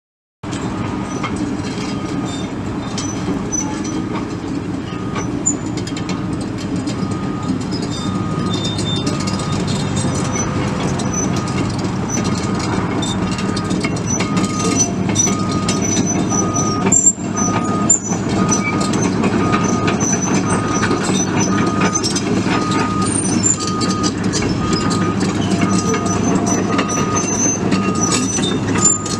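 2011 Komatsu PC200LC-8 HD excavator running, its 6.7-litre six-cylinder turbo diesel going steadily, with a warning alarm beeping at an even pace over it. A couple of clanks come just past the middle.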